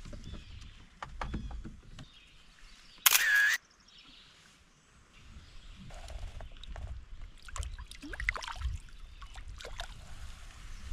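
A short camera shutter sound about three seconds in, the loudest thing here, amid light knocks, clicks and low thuds of handling in the kayak. The fish is being measured and photographed for the tournament.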